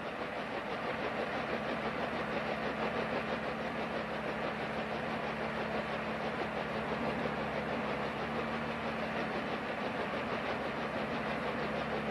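Bell H-13 helicopter's piston engine and rotor running steadily, a dense mechanical drone with a fast, even pulse.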